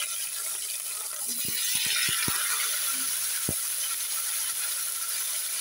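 Vegetable pieces frying in hot oil in a kadai, a steady sizzle, with several short knocks as more pieces drop into the pan between about one and three and a half seconds in.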